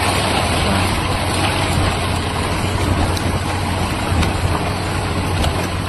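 Heavy vehicle engine running steadily, a constant low hum under loud mechanical noise.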